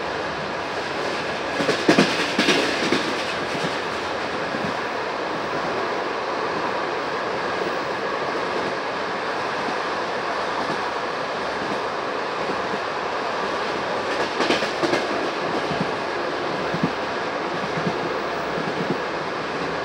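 Passenger train coach wheels running on the rails, a steady rumble with two brief bursts of clickety-clack as the wheels pass over rail joints, about two seconds in and again near the middle.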